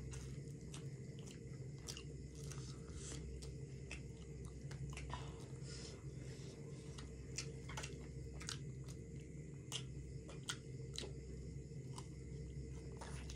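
Close-miked chewing and biting of chicken biryani, with scattered soft mouth clicks and crunches, over a steady low hum.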